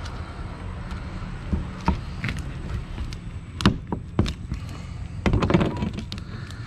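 Knife cutting a barracuda into steaks on a plastic cutting board: a few sharp knocks of the blade meeting the board, then a short clatter about five seconds in. A steady low rumble sits underneath.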